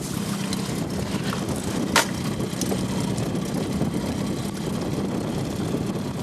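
Boat motor running steadily with an even hum, with one sharp click about two seconds in.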